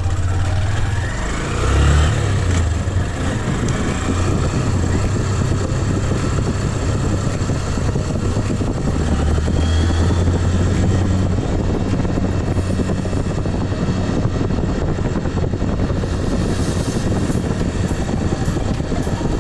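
Motorcycle engine running steadily on the move, with wind rushing over the microphone. There is a brief louder swell about two seconds in.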